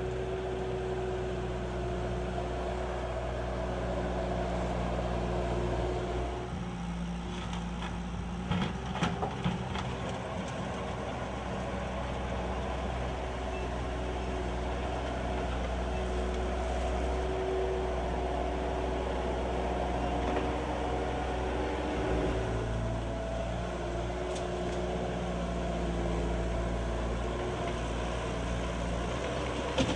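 Bobcat skid-steer loader's diesel engine running steadily as it digs out the old driveway, its note changing a few times as it works. A few sharp knocks come about eight to ten seconds in.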